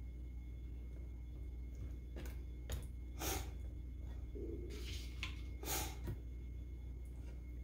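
Metal spoon spreading ricotta cheese in a square pan: a few soft scrapes and light taps, the two longest about three and five and a half seconds in, over a steady low hum.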